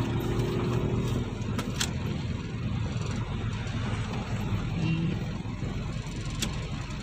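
Mitsubishi Kuda's 2.5-litre diesel engine running while the car is driven, heard from inside the cabin. Its steady engine note gives way about a second in to a broad low rumble, with a few sharp clicks.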